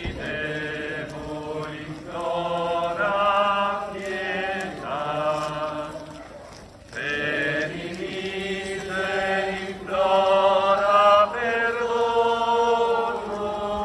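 Voices singing a slow hymn in long held notes, phrase after phrase with short breaks between, and a brief pause about halfway through.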